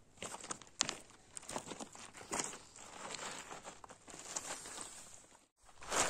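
Irregular crunching and rustling close to the microphone, with sharp clicks: a handheld camera carried over dry, stony ground while walking. The sound drops out for a moment near the end.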